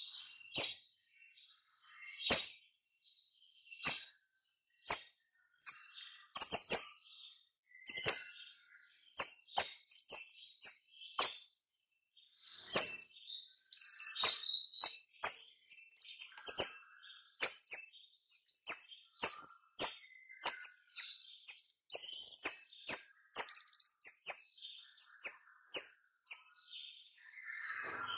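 A caged kemade songbird calling in short, sharp, high chirps. They come singly and spaced at first, then in a quick run of about two a second through the second half: the dense 'nembak' calling that keepers play to lure other kemade into song.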